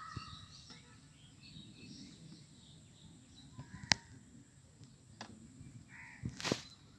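Quiet open-air ambience with a low background murmur and a few faint bird calls. A single sharp click comes about four seconds in, and a brief burst of noise comes near the end.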